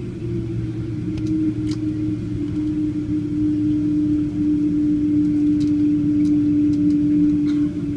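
Jet airliner's engines at taxi idle, heard from inside the cabin: a steady hum with one held tone that settles slightly lower in pitch about a second in, growing a little louder.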